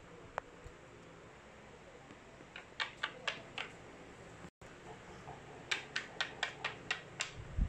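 A small plastic toy figure tapping on a hard tabletop in short, light clicks: four about three seconds in, then a quicker run of about eight near the end, as it is hopped along the table.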